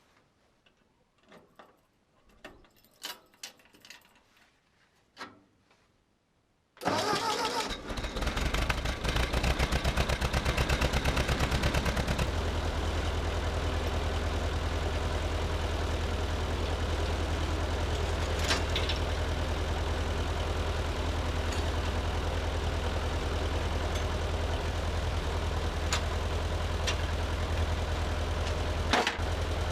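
Ford 8N tractor's four-cylinder engine starting about seven seconds in: it catches suddenly and runs fast for a few seconds, then settles to a steady idle. Before that, only a few faint clicks and knocks.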